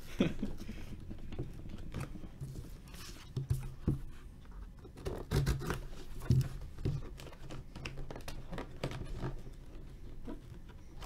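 Fingers scratching and scraping at the plastic shrink wrap and cardboard of a sealed trading-card box, with many small scattered taps and rubbing sounds as it is peeled and turned.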